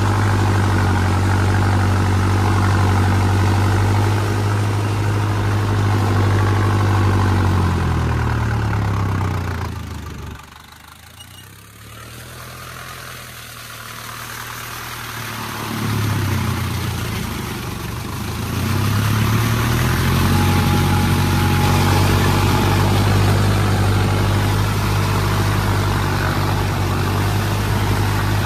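Mahindra 265 DI tractor's three-cylinder diesel engine running steadily while working a rotavator. About eight seconds in it slows and grows much quieter, then revs back up in two steps over the following several seconds and settles at its working speed again.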